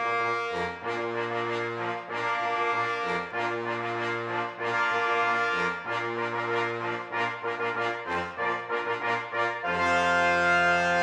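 Background music played on brass instruments: a slow succession of held notes, swelling into a long, louder sustained chord near the end.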